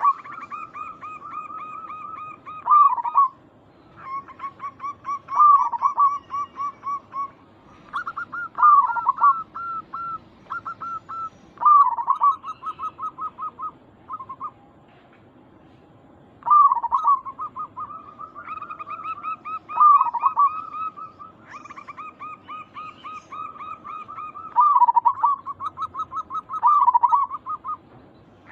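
Zebra doves (perkutut) calling: rapid trains of short staccato notes, about eight a second, broken every few seconds by a louder swooping coo, with a short pause about halfway through.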